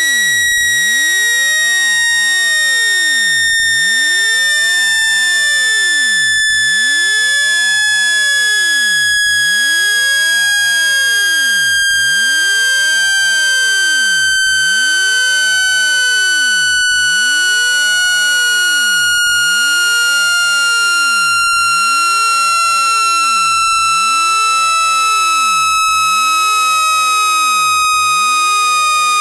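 Synthesized speaker-cleaning tone: one loud, continuous electronic tone with overtones, sliding slowly and evenly down in pitch.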